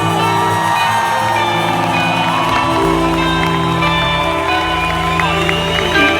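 Live band playing an instrumental passage of the song, with held bass and chord notes under a gliding melody line, and a crowd cheering and whooping underneath.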